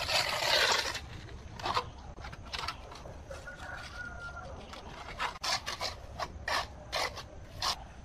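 A steel trowel scraping over wet cement mortar on the top edge of a brick grill, smoothing it against a straight guide strip: one longer, louder scrape right at the start, then a string of short scrapes.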